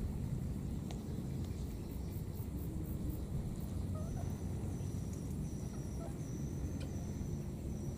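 Outdoor background noise: a steady low rumble, with a faint thin high-pitched tone that comes and goes in the second half.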